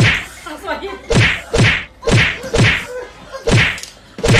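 A run of loud, sharp whacks, mostly in quick pairs about a third of a second apart, coming roughly once a second, as in a slapping paw fight.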